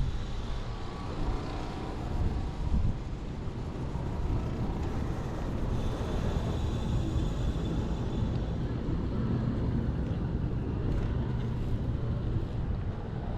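Steady wind and road noise from riding a Kaabo Mantis dual-motor electric scooter through city traffic, mostly low rumble.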